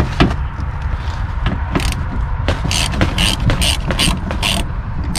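Hand socket ratchet clicking as a 10 mm bolt on a door window regulator is loosened: a few scattered clicks, then from about halfway a quick run of about four clicks a second.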